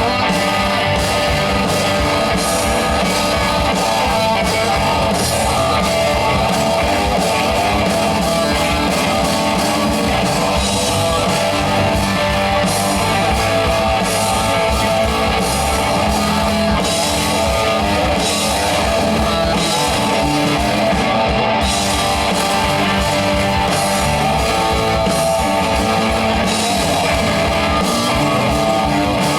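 A rock band playing live: guitar and drum kit, loud and steady throughout.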